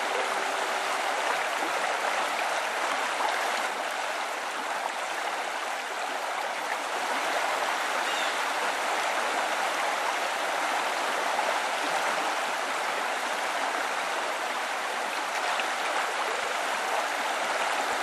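Steady rush of river water pouring over a low concrete weir.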